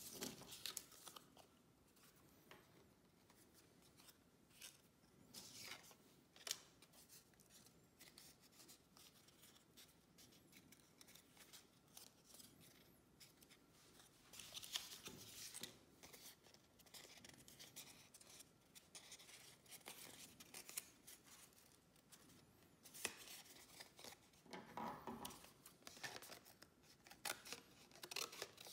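Faint crackles, snaps and scrapes of thin grey cardboard being handled, in scattered bouts: cut pieces are bent, rubbed against each other and pulled apart on a wooden tabletop.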